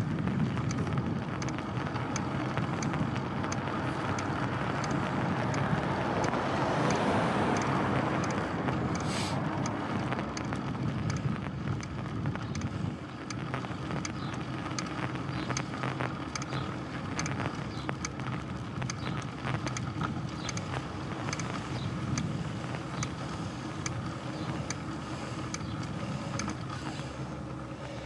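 Bicycle ride along a town road: steady tyre and wind noise on the microphone, swelling louder from about four to nine seconds in.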